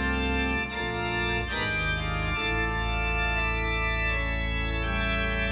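Live band music led by sustained organ-sounding keyboard chords over a steady low bass; the chords change a few times in the first two seconds or so, then hold.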